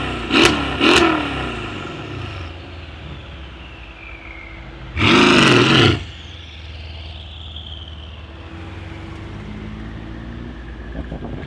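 Mercedes CLS63S AMG twin-turbo V8 with a decat exhaust revving while stationary: two quick blips in the first second, then a single harder rev of about a second about five seconds in, each followed by a falling turbo whistle as the engine drops back to idle.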